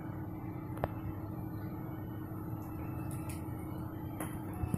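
Steady low hum of room noise with a faint held tone, broken by a single sharp click about a second in and two small ticks near the end.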